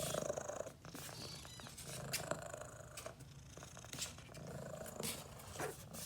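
Mother cat purring close up, a low rumble that swells and fades with each breath, with scattered light rustles and clicks.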